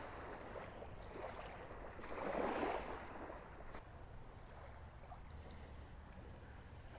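Small waves lapping on the shore: a soft wash that swells and fades about two to three seconds in, over a faint low rumble.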